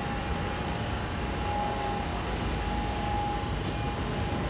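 London Underground Central line tube train (1992 stock) moving alongside the platform: a steady rumble with a thin, steady whine.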